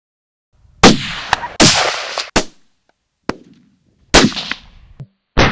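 A quick edited run of about six loud gunshots, each a sharp crack with a short rolling tail, several cut off abruptly by the edit.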